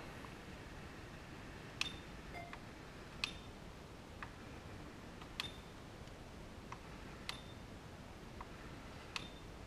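Push-button clicks on a Sony DSX-A510KIT car head unit as its FM tuner is stepped through frequencies. Five sharper clicks come about every one and a half to two seconds, each with a brief high beep, and lighter clicks fall in between, over a faint hiss.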